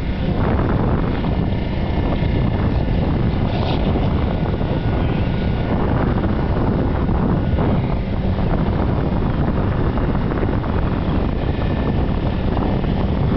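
Steady low rumble of wind on the microphone, with a boat's engine running underneath on open water.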